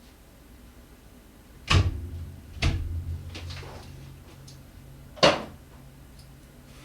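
Three sharp clunks of hard objects knocking together, the first two close together and trailing a low ringing hum, the third a few seconds later: tools or metal parts being handled while looking for a wrench.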